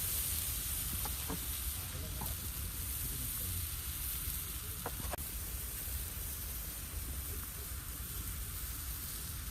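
Steady rain falling, an even hiss with no break, with a few faint short chirps over it.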